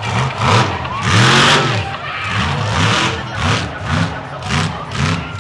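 Monster truck engine revving hard in a series of throttle blips, its pitch rising and falling again and again. The blips come quicker in the second half, about three a second.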